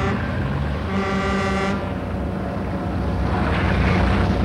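Heavy truck engine running with a steady low rumble, and a horn sounding for under a second about a second in.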